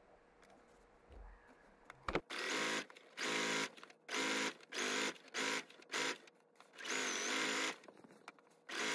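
Electric sewing machine stitching a rolled hem in short stop-start runs. After about two quiet seconds, the motor runs in roughly eight spurts of under a second each, with brief pauses as the fabric is guided into the foot.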